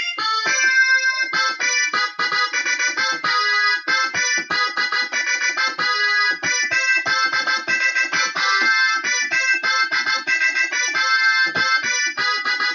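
Korg Kross synthesizer playing a cumbia melody in quick, repeated notes on a keyboard patch close to accordion.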